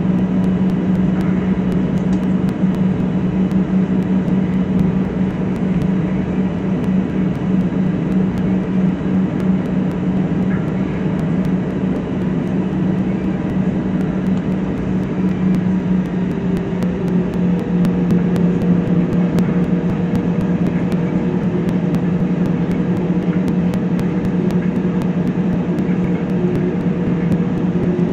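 Airbus A320's jet engines running at taxi power, heard from inside the cabin over the wing: a steady low drone, with a faint whine joining in about halfway through.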